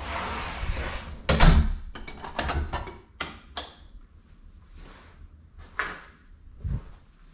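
Knocks and clicks of household fittings being handled. A rolling rumble gives way to a loud thud about a second and a half in, followed by a quick run of lighter knocks and two more spaced knocks near the end.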